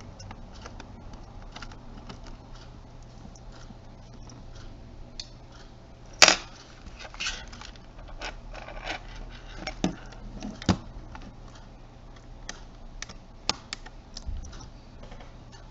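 Scattered small clicks and taps of a precision screwdriver and tiny screws against a camcorder's plastic housing as it is taken apart, the loudest a sharp click about six seconds in, over a faint steady low hum.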